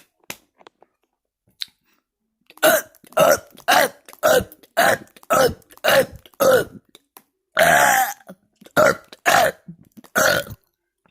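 A man burping over and over in quick succession. The run starts about two and a half seconds in and holds about a dozen short, loud burps, each falling in pitch, roughly two a second, with one longer burp near the middle.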